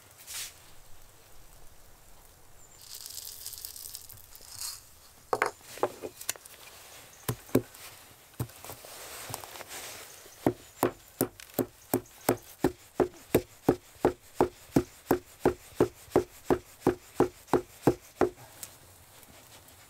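Wooden pestle pounding black peppercorns in a wooden mortar. A few scattered knocks give way to a steady run of about two to three strokes a second, which stops near the end. Before the pounding there is a short rustle.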